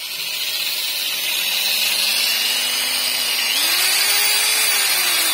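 Corded electric drill running a grinding bit in the port of a Suzuki Tornado 118cc two-stroke cylinder, porting it by hand. The drill's motor whine climbs in pitch, peaks about four seconds in and drops near the end, over a steady high grinding hiss of the bit on the metal.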